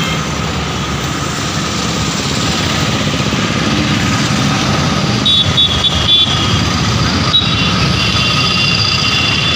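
Steady road-traffic noise with a low rumble of passing vehicles. From about halfway in, a high, broken tone comes and goes over it.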